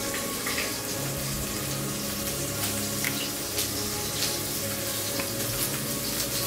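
A steady hiss with a few faint light ticks over it.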